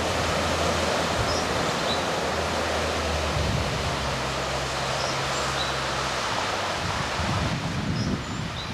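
Steady rush of floodwater flowing across a road, with the low hum of a car's engine as it drives through the flood, fading out about six seconds in.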